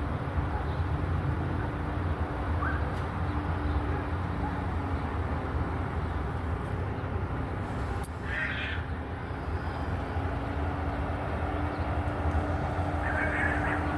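Steady low rumble with a faint steady hum over it, and a bird calling briefly about eight seconds in and again near the end.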